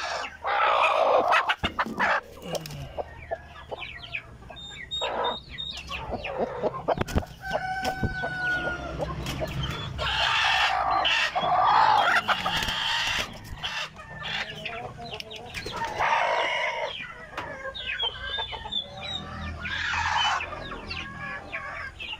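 Chickens clucking and calling over and over, with a rooster crowing among them; the longest and loudest calls come about ten to thirteen seconds in.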